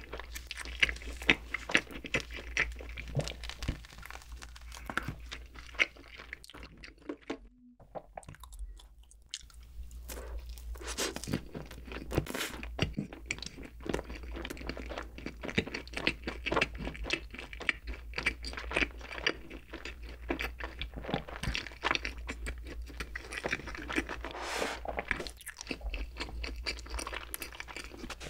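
Close-miked chewing of soft bread and whipped cream, with a brief pause about seven seconds in.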